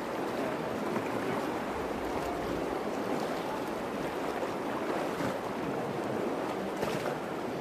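Shallow Virgin River running over stones and riffles: a steady, even rush of water.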